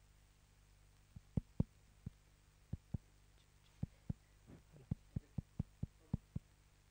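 About fifteen soft, short low thumps at irregular intervals over a faint steady hum.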